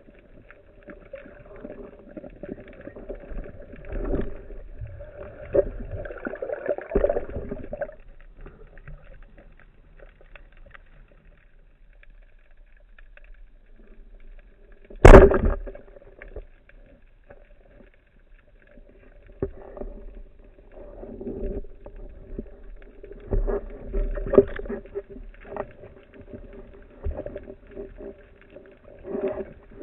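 Band-powered speargun firing underwater: one sharp, very loud crack about halfway through as the rubber bands release and drive the shaft. Before and after it come faint underwater knocks and clatter from the diver handling and loading the gun, over a low hum.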